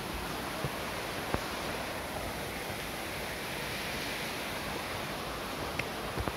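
Steady rush of a shallow stream running over rocks, with a couple of faint clicks.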